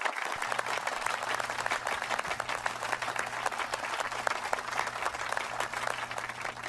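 Crowd applause: many hands clapping, starting abruptly out of silence and thinning out near the end.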